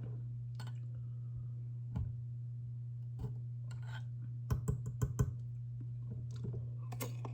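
Mouth noises of a person eating a dill pickle: scattered sharp, wet clicks and crunches, with a quick cluster of them around the middle. A steady low hum runs underneath.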